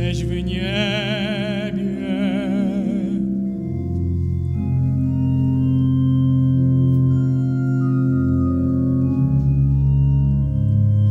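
A tenor holds a note with wide vibrato over pipe organ accompaniment, ending about three seconds in. The pipe organ then plays on alone in sustained, slowly changing chords.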